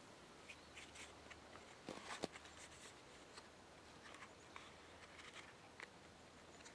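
Near silence, with faint scattered rustles and small clicks of a small leather sewing repair kit being handled, and two slightly louder taps about two seconds in.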